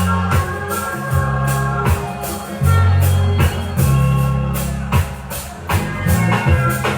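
Reggae music with a prominent organ, a deep bass line and a steady beat.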